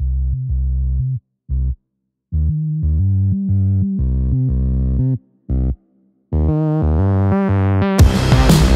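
Background music: a synthesizer playing held low notes, broken by short silent gaps and building in pitch range. Near the end a full, distorted band mix with hard drum hits comes in.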